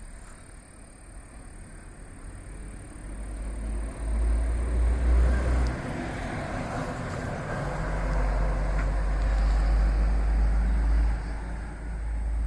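A passing vehicle, its noise building gradually from about three seconds in and easing near the end, over a low rumble that comes and goes.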